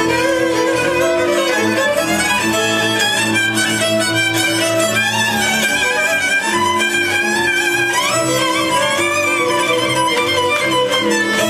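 Lively fiddle-led Hungarian folk dance music, playing steadily.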